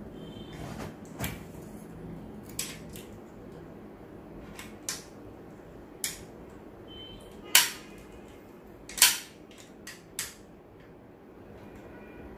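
Scattered sharp clicks and clacks of a GHK AKMS gas-blowback airsoft rifle's parts being handled and worked as it is taken apart, with two louder knocks a little past the middle.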